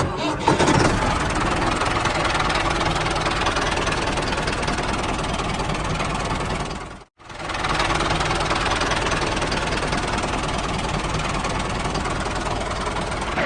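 Small engine of a DIY mini tractor running steadily, dropping out briefly about seven seconds in and then running on.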